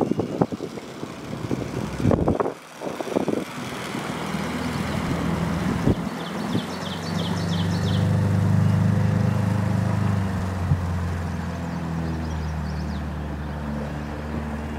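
Old Johnson outboard motor pushing a small boat away across the water, its steady note building about four seconds in, loudest a few seconds later as it opens up, then easing off as the boat draws away. Wind buffets the microphone at the start, and a bird gives a quick run of chirps about seven seconds in.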